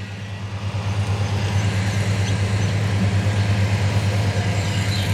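An engine running steadily with a low hum, growing a little louder over the first second or two.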